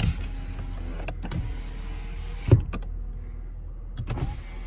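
2010 Honda Accord front power window motor running the glass, with a loud thunk about two and a half seconds in, then running again near the end.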